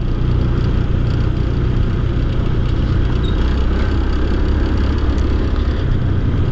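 Motorcycle engine running at a steady cruising speed, a low even hum, with wind and road noise on the microphone of the moving bike.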